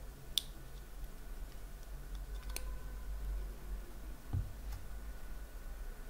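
A few sharp, light metallic clicks of tweezers and small brass lock pins being picked out of a pin-tumbler cylinder's plug, with a dull knock about four seconds in.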